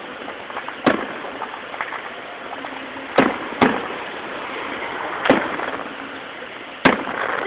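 Aerial fireworks shells bursting: five sharp bangs at uneven intervals, each trailing off in an echo.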